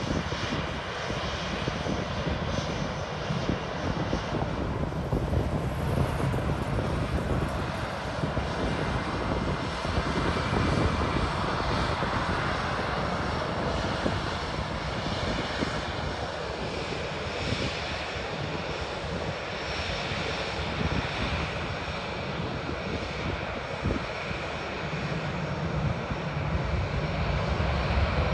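Airbus A319 airliner's jet engines running steadily: a continuous rumble and hiss with a faint high whine.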